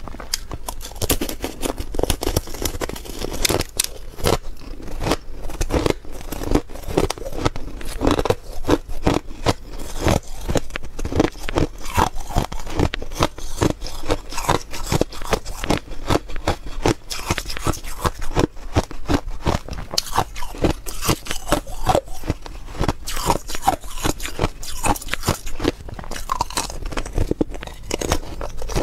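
A block of pink frozen ice being bitten and chewed, with dense, crisp crunching and cracking that keeps on throughout as it breaks between the teeth.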